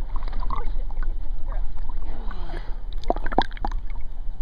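Water sloshing and splashing against a waterproof pocket camera held at the surface of the sea, over a steady low rumble, with a few sharper splashes about three seconds in.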